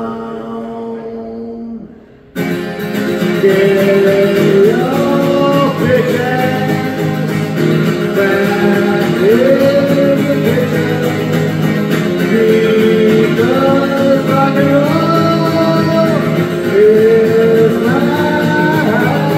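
A man singing a rock song while strumming an acoustic guitar. A held chord and sung note ring out and stop about two seconds in, then the strumming and singing start again.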